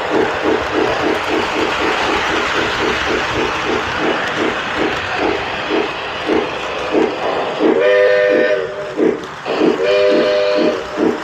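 Lionel LionChief O gauge 2-4-2 toy steam locomotive running, its sound system playing a steady steam chuff about five times a second over the rumble of wheels on the track. Two whistle blasts sound about eight and ten seconds in, the first longer.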